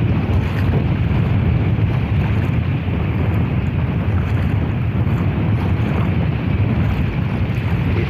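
Wind buffeting the phone's microphone in a steady low rumble, over small sea waves washing into shallow water along a shore.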